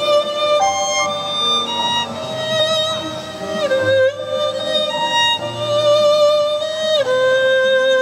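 Violin playing a slow, lyrical melody in long held notes with vibrato, sliding down into a new note twice, over a backing track with low sustained notes.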